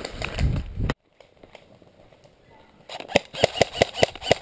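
Brush rustling and footfalls from a player running through scrub, cut off suddenly about a second in. From about three seconds in, an airsoft electric M4 rifle fires a rapid string of about ten sharp shots.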